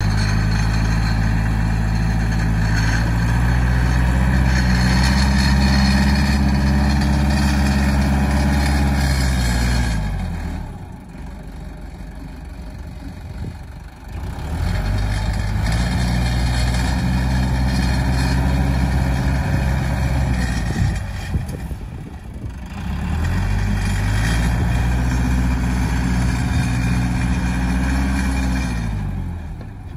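Trident tractor's diesel engine under load while its front-end loader works a pile of soil. It revs up and holds high three times, dropping back lower in between.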